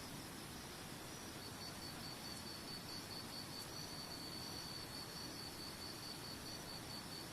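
Steady rushing of waterfall water, with an insect, likely a cricket, chirping high in an even, rapid pulse that starts about a second and a half in.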